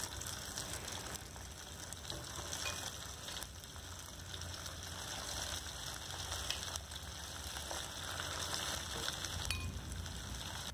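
Marinated chicken pieces deep-frying in hot oil, a steady sizzle and bubbling.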